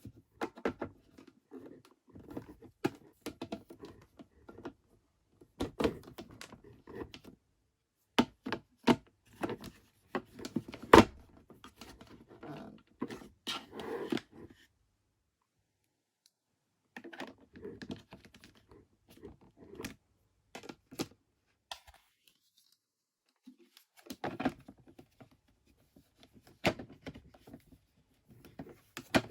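Small plastic toy pieces and their packaging being unpacked and handled on a hard surface: irregular clicks, taps and light thunks with some rustling, broken by two short stretches of dead silence.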